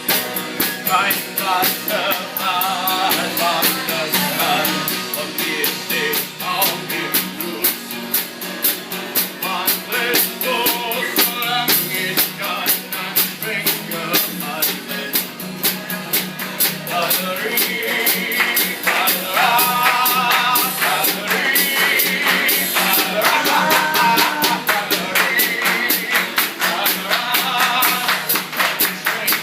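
A song sung in German over a rock-style backing of drums and guitar, with a steady beat.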